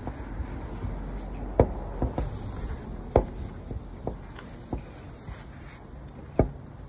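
Hands fumbling along the front of a pickup's hood and grille, searching for the hood latch: about half a dozen sharp knocks and clicks against the plastic, three of them louder, over a low rumble.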